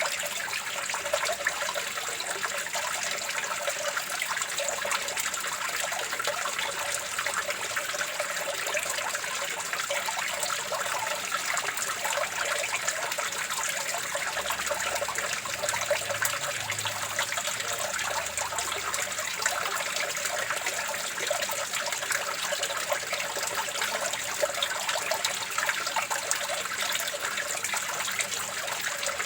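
Water running and trickling steadily, a dense, even patter of small splashes with no change in flow.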